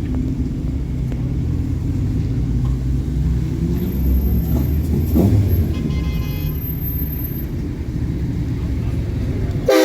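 Car engines rumbling low and steady, with a short rise and fall in pitch about halfway through. A car horn blares loudly at the very end and cuts off abruptly.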